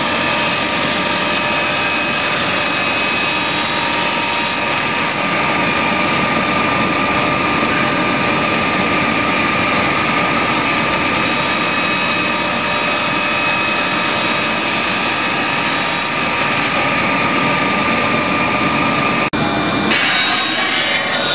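Circular saw and bandsaw of a CNC panel-cutting machine running and cutting a wooden panel: a steady saw noise with high whining tones. It breaks off briefly about 19 s in and comes back with a different, rougher sawing sound.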